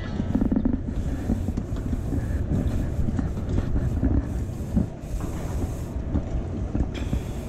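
Wind buffeting the microphone: a continuous uneven low rumble with surges of hiss.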